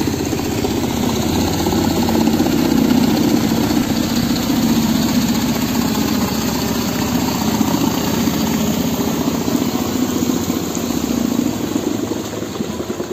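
Engine of a small wooden motorboat running steadily under way, with a fast even pulse. It eases off slightly near the end.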